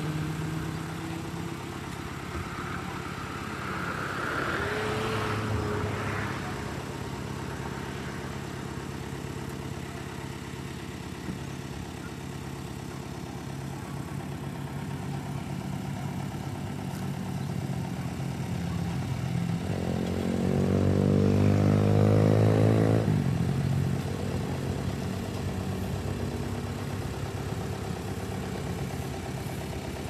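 Road traffic: a steady engine hum throughout, with vehicles passing by. The loudest pass comes about two-thirds of the way through, and a smaller one a few seconds in.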